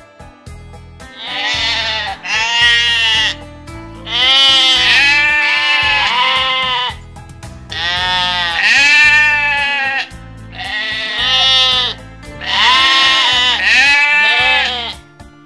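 Sheep bleating again and again: long, wavering bleats in quick succession, some running into one another, over a steady background music bed.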